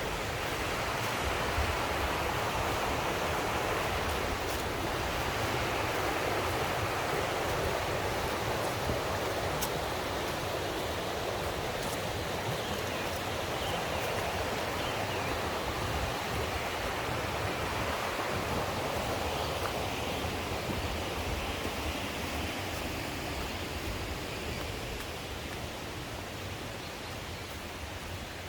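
Mountain stream rushing steadily, a constant wash of running water that eases off a little near the end.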